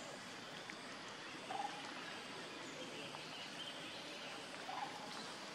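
Steady background hiss with two faint, short animal calls, one about a second and a half in and one near the end.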